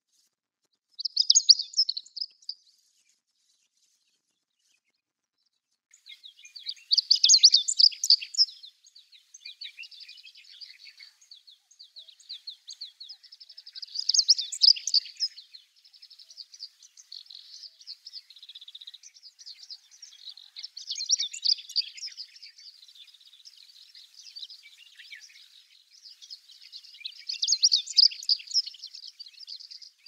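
Chestnut-eared bunting singing: five loud phrases of rapid high notes, about one every six or seven seconds, with fainter twittering in the gaps from about nine seconds in.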